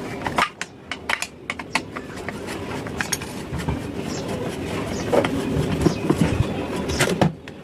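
Irregular small clicks and knocks of screws, nuts and a screwdriver being handled against a metal heat sink while fitting amplifier ICs, over a steady background noise.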